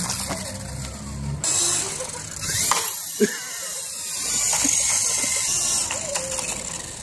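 Toy remote-control helicopter's small electric motor and rotor whirring as it sits on the pavement, in a few short spliced clips, with brief fragments of voices.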